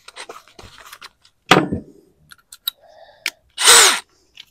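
Tools being handled during work on a metal anchor: scattered clicks and knocks, a short louder clatter about a second and a half in, and a brief loud rushing burst with a falling pitch near the end.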